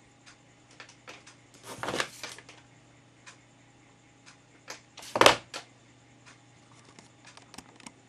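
Camera handling noise: scattered small clicks and knocks, with two louder scuffs, a longer one about two seconds in and a shorter, sharper one just after five seconds.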